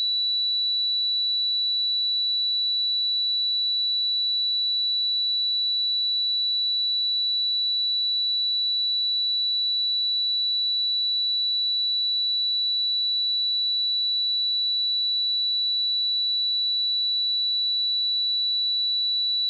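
Steady pure sine-wave test tone at 3946 Hz, a single high-pitched whistle-like note held at constant level.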